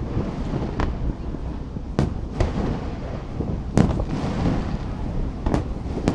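Aerial fireworks shells bursting in a string of about six sharp bangs, irregularly spaced, over a steady low rumble.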